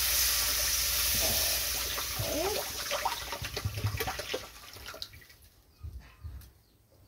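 Water poured from a plastic bottle into a hot aluminium kadhai of oil-fried peanuts and spices, splashing and hissing loudly as it hits the hot oil. The hiss dies down about five seconds in.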